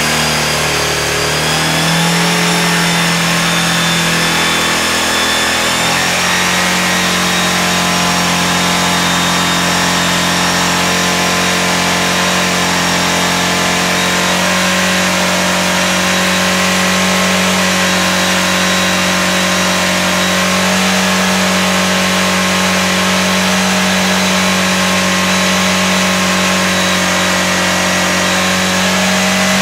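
Rotax 914 UL turbocharged flat-four aircraft engine running loud under load on a dynamometer test bench. Its pitch steps up twice in the first few seconds, then holds steady.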